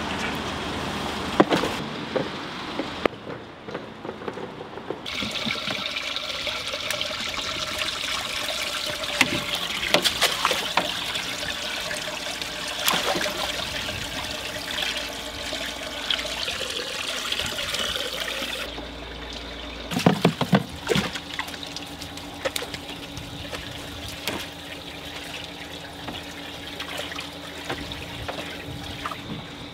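Water pouring, trickling and splashing as live fish and seawater are tipped from a plastic bucket into a glass fish tank, with a few sharper splashes along the way.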